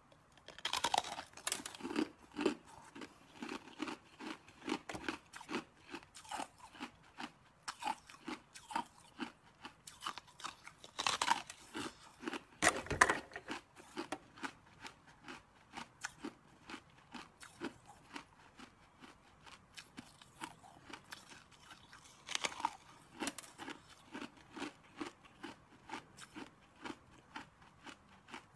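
A person biting off and chewing pieces of a hard, crystalline stick: a continuous run of sharp crunches, about two or three a second, with a few louder bites about 11, 13 and 23 seconds in.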